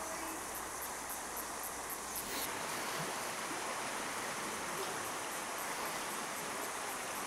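Steady rushing of flowing water, such as a creek. A faint low hum underneath stops about two and a half seconds in.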